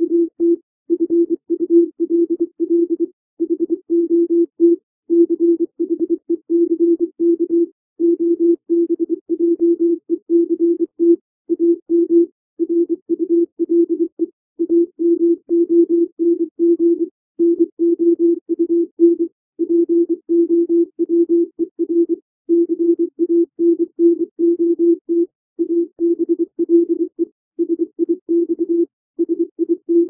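Computer-generated Morse code: a single low, steady-pitched tone keyed on and off in short dots and longer dashes, sending plain English words at about 24 words per minute, with short gaps between letters and words.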